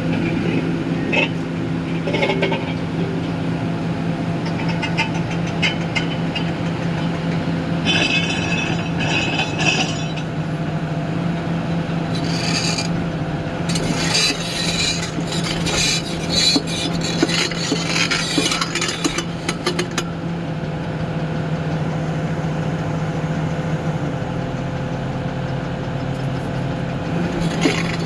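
Diesel engine of a heavy earthmoving machine running steadily under bouts of harsh scraping and grating. The engine note drops lower near the end.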